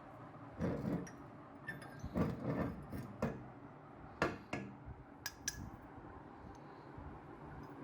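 Irregular knocks and sharp clinks of hard kitchen items being handled, about a dozen in the first five and a half seconds, some ringing briefly; after that only a low steady background.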